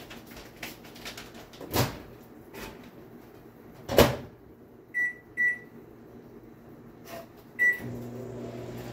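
Microwave oven being started: a click, then the door shut with a knock about four seconds in, three short keypad beeps, and then the oven's steady low hum as it begins heating, set to high for 90 seconds.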